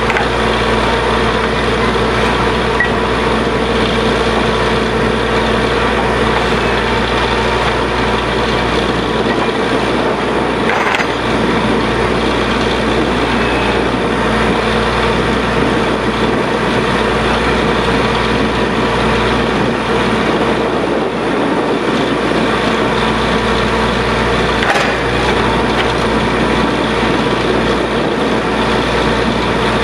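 A borewell drilling rig running steadily under load, a dense mechanical noise with steady tones through it. Faint knocks come about a third of the way in and again near the end.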